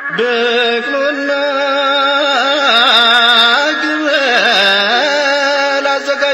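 A man singing an Ethiopian Orthodox zelesegna mezmur hymn, one voice holding long notes that waver and bend through melismatic ornaments.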